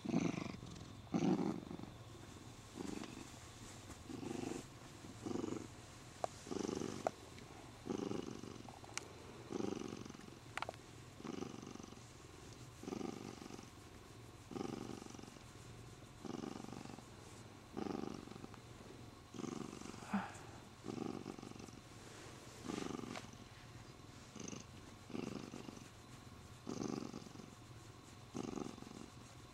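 Siamese cat purring while being stroked, the sign of a contented cat, swelling and fading with each breath about once every second and a half.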